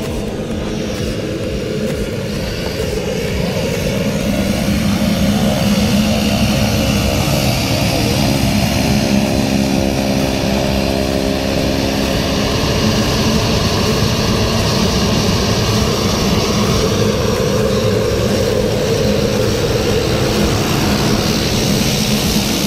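Single-engine turboprop airplane's engine and propeller running on the ground as it taxis, a steady drone that grows louder over the first several seconds and then holds.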